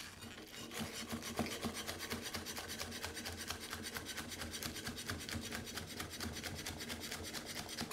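Chinese cleaver chopping spring onion on a round wooden chopping block: a fast, even run of short knocks, several a second, starting just under a second in.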